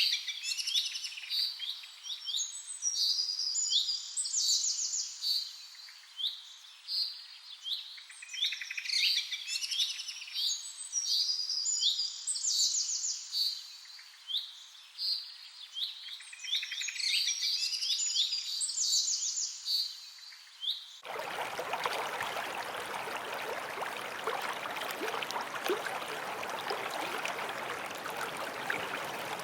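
Birds singing: bursts of quick chirps and trilled phrases, repeated again and again, with nothing in the low range beneath them. About twenty-one seconds in, this cuts suddenly to the steady rush of a running creek.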